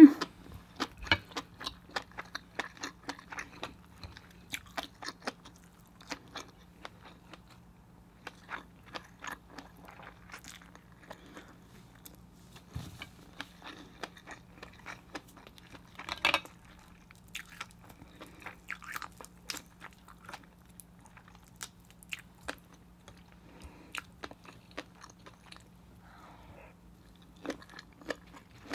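Close-miked chewing of a big bite of seafood with fish egg sauce: many small wet clicks and crunches in an uneven rhythm, with one louder crunch about 16 seconds in.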